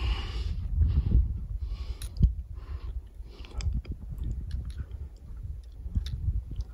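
Footsteps crunching on loose gravel and stones at a steady walking pace, about one step a second, growing fainter after the first few seconds. Light sharp clicks follow, from trekking-pole tips on rock, over a constant low rumble.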